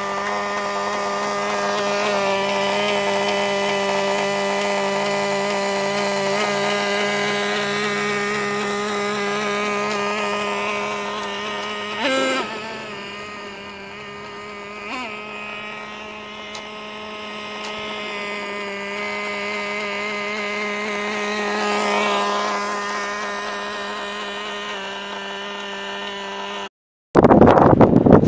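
Traxxas T-Maxx 2.5 nitro RC truck's small two-stroke glow engine running at a steady high buzz as it drives around. It grows fainter as the truck moves away and louder as it comes back, with two brief blips about 12 and 15 seconds in. Near the end the engine sound cuts off and loud gusty wind noise on the microphone takes over.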